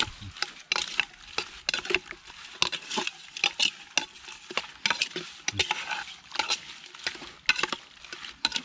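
Metal spoon stirring and scraping inside a metal pot, mixing raw chicken pieces with herbs, leaves and chilli paste: a continuous irregular run of short clinks and scrapes.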